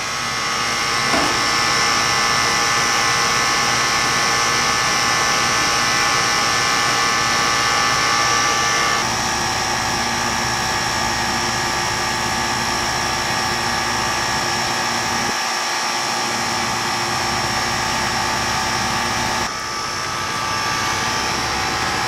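Outdoor condensing unit of a Sanyo mini split air conditioner running: a steady machine hum with high whining tones. The tone changes abruptly about nine seconds in and again near the end.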